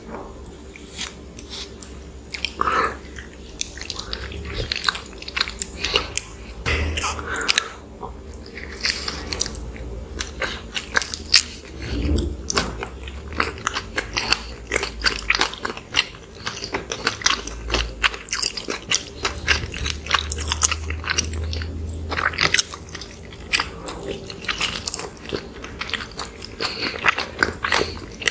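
Close-miked eating sounds of soft microwave cinnamon rolls being bitten and chewed, with many quick, irregular wet mouth clicks and crackles.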